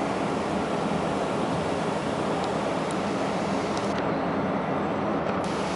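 Steady rushing wind mixed with a ship's low, even engine hum.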